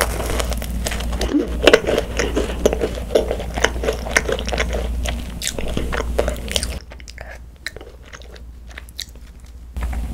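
Close-miked biting into and chewing a ttungkaron, a fat Korean macaron, its crisp shell crackling. The chewing goes quieter about two-thirds of the way through, and a fresh bite starts near the end.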